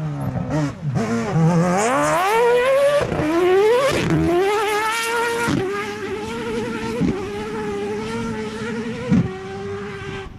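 Rivet Mazda rally car's engine under hard acceleration. It drops in pitch briefly, climbs steeply through two gears, then holds near-steady revs as it pulls away. Sharp exhaust cracks come at the gear changes.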